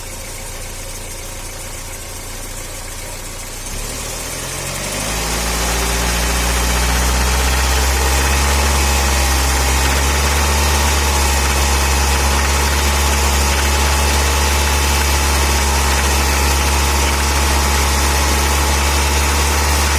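Audi 80 engine idling, then brought up to a steady, higher speed about four to six seconds in and held there, louder. It carries the knock that the owner cannot place, which he doubts comes from the piston pins.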